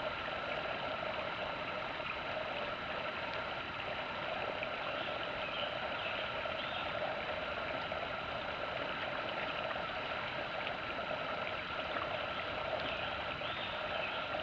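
Small rocky woodland stream running steadily, an even rush of flowing water.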